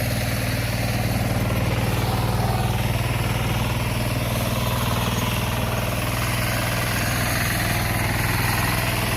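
Single-cylinder diesel engine of a kuliglig (two-wheel hand tractor) running steadily at an even speed while it works the field.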